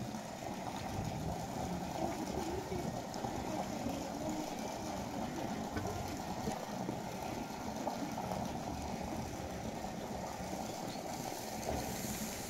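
Steady low background rumble with faint, indistinct voices in the distance.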